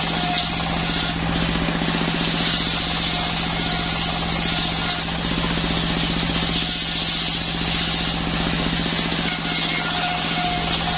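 A circular sawmill (serkel) running steadily with a constant machine hum. A higher rushing sound rises and falls every few seconds as the blade works through a waru log.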